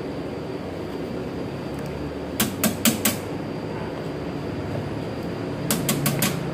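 Two quick runs of sharp plastic clicks, about four near the middle and five near the end, as a small aquarium net knocks against shallow plastic tubs while fry are moved, over steady background noise.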